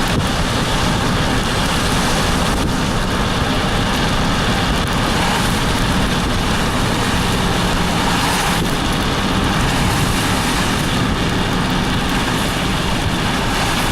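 A car being driven: steady engine and road noise that holds even throughout, with no change in pitch.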